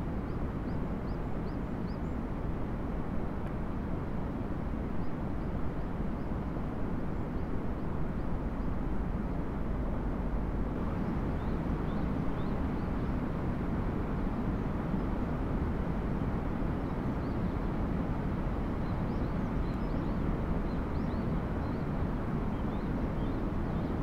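Steady low outdoor rumble of background noise, with faint, short, high bird chirps now and then.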